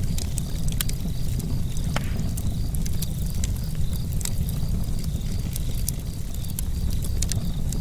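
Campfire burning, with irregular sharp crackles and snaps over a low steady rumble. A faint high chirp repeats several times a second behind it.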